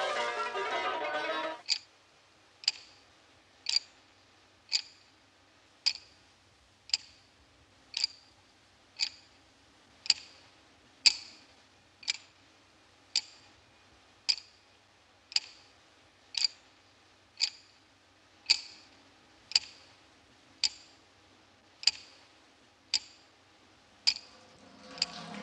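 Plucked-string music breaks off, then a steady series of sharp ticks follows, about one a second, each with a short high ring, over near silence.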